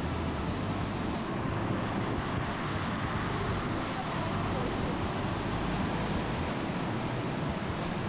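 Steady roar of a large waterfall heard close up: a dense, even rush of falling water with a deep low rumble beneath it.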